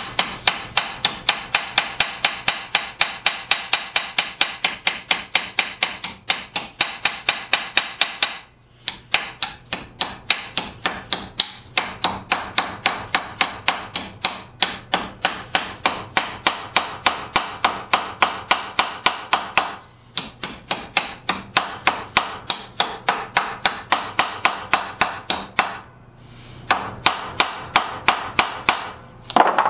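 Small hammer tapping rapidly on a metal strip laid over a bench-vise jaw, bending it to shape as a soft jaw: sharp, ringing metallic blows at about three to four a second. The run stops briefly about 8 s in, about 20 s in and about 26 s in.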